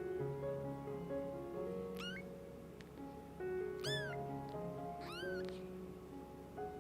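Young kitten meowing three times, high and thin, about two, four and five seconds in, the middle call loudest: a hungry kitten calling for its mother. Soft piano music plays underneath.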